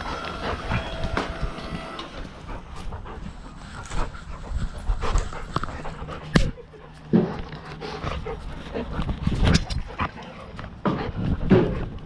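Dogs panting and scuffling in play right against a GoPro camera, with fur and collar rubbing and knocking on the housing. There is one sharp knock about six seconds in.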